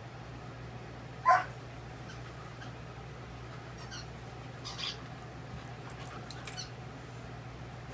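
A puppy gives one short, high-pitched yelp about a second in during gentle play with a larger dog, followed by a couple of fainter short sounds later.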